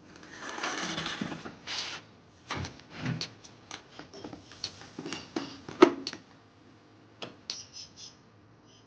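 Handling noises of a 15 amp plug lead going into a generator outlet: a rustle, then a string of clicks and knocks, the loudest a sharp click about six seconds in.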